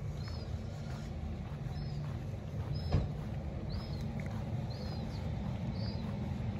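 A small bird chirps over and over, short high notes about once a second, above a steady low rumble of outdoor background noise. There is a single knock about three seconds in.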